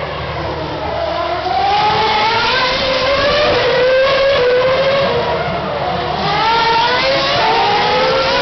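Formula One cars' 2.4-litre V8 engines running at very high revs as they accelerate. The pitch climbs in steps through upshifts, with one rising run from about a second and a half in and another from about six seconds in.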